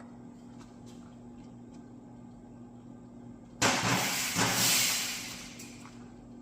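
A loud metallic clatter and scrape starting suddenly about three and a half seconds in and fading over about two seconds, as the slant six 225's crankshaft is pulled out of the block.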